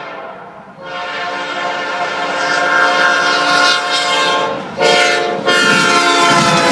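Approaching train's multi-note air horn sounding a long blast, a short blast and another long blast, the second part of the long-long-short-long pattern sounded for a grade crossing. The rumble of the train grows underneath, and the horn's pitch drops slightly near the end as it draws level.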